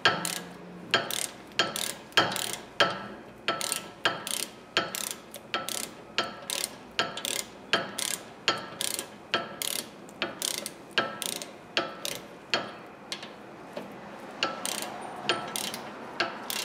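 Hand ratchet wrench clicking as it is swung back and forth, running in the caliper mounting bracket bolts on a front brake: a steady run of sharp clicks, about three a second, with a short pause near the end.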